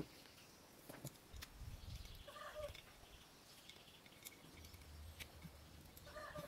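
Near silence with faint clicks of metal air-hose quick-connector fittings being handled. Two short, faint animal calls come about two and a half seconds in and near the end.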